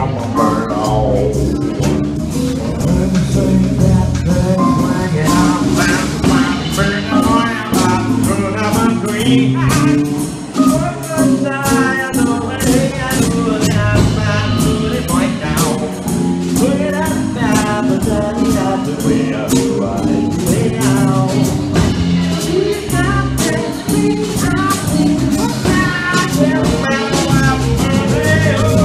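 Live jazz combo playing a jazz blues: drum kit with steady cymbal strokes, bass, and a Nord Piano 2 stage keyboard.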